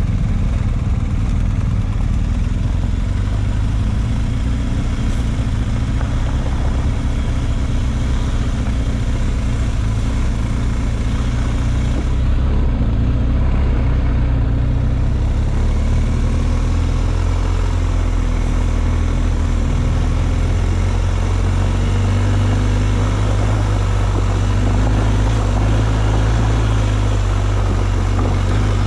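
Engine of an off-road vehicle running steadily with a strong low drone. Its pitch shifts a little around the middle.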